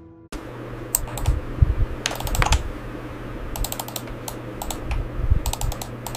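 Typing on a computer keyboard: irregular runs of key clicks with short pauses between them, starting about a third of a second in, over a steady low hum.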